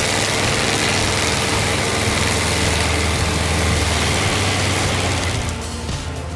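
Heavy forestry machine running under load while its mulching grinding head shreds a tree trunk: a steady low engine hum under a loud, dense hiss of wood being chewed up, easing off near the end.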